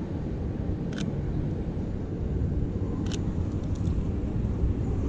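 Steady low rumble of city street traffic, with sharp camera shutter clicks: one about a second in and a quick group of three around three seconds in.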